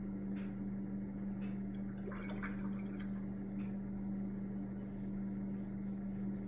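A steady low hum, under faint light scratchy sounds of a watercolour brush being worked, with a brief cluster of them about two seconds in.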